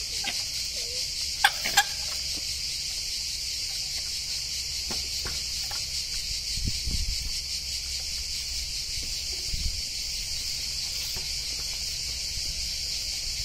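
Steady, high-pitched insect chorus, with two sharp clicks about a second and a half in and a couple of dull low thumps later.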